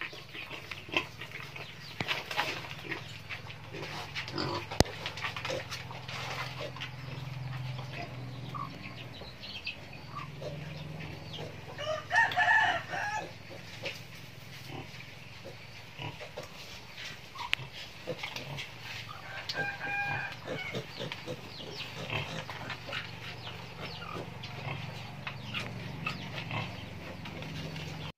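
A wild boar sow and her striped piglets grunting and rustling at feeding, a steady run of short grunts and clicks. A chicken calls loudly about twelve seconds in and again more faintly around twenty seconds.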